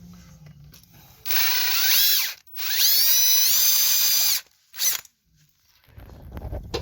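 Power drill run in two long bursts, its motor whine rising in pitch as it spins up and then holding steady, followed by one short burst.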